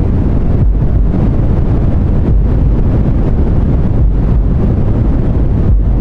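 Deep white noise: a steady, dense hiss with most of its weight in the bass.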